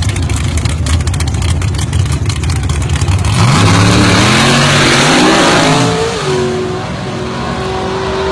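A drag car's engine running loud and rough while staged, then launching about three seconds in: the revs climb hard, break once at a gear change, and climb again. The engine then holds a steadier, quieter note as the car pulls away down the strip.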